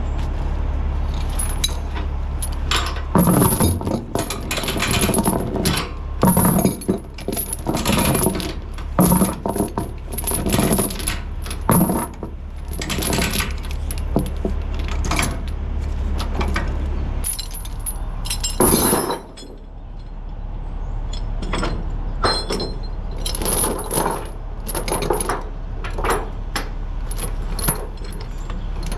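Steel chains clanking and clinking against metal, many irregular strikes, over a steady diesel engine idling. The idle hum drops lower about two-thirds of the way through.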